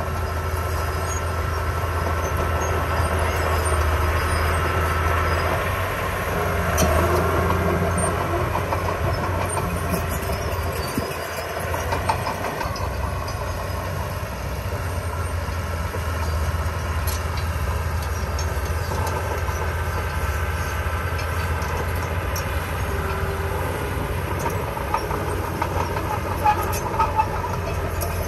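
Small bulldozer's diesel engine running steadily under load, with metallic clanking from its tracks, dipping briefly about eleven seconds in; a few sharp clanks near the end.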